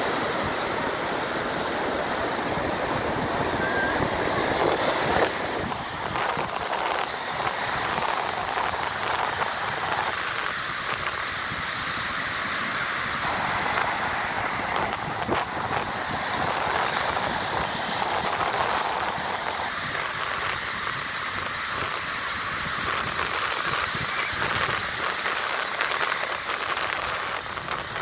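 Ocean surf breaking and waves washing up onto a sandy beach, a steady rushing that swells and eases every few seconds.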